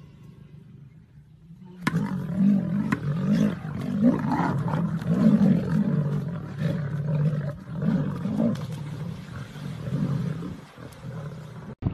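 Lionesses growling in a fight: a run of repeated, swelling growls that starts about two seconds in and goes on without a break.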